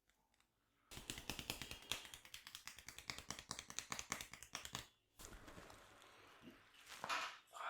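Rapid dry clicking taps of a massage, many a second for about four seconds, then softer rustling and a short burst of clicks near the end.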